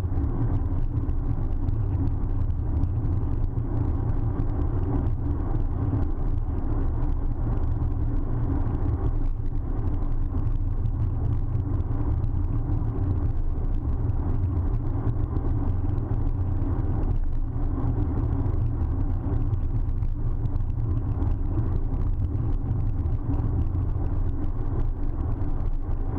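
Steady low rumble of a bicycle rolling over tarmac, with road vibration and tyre noise carried through the mount into an action camera fixed low on the bike's front end.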